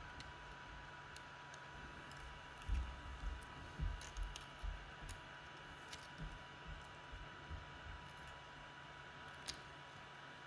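Small clicks and light knocks of tweezers and small drone parts being handled during a repair, mostly in the first half, with one sharper click near the end, over a faint steady hum.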